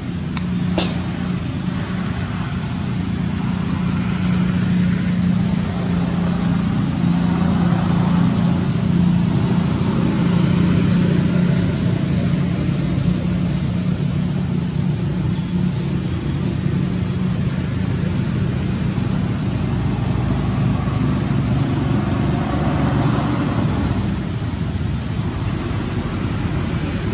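A steady, low motor drone with traffic-like noise over it, plus one sharp click about a second in.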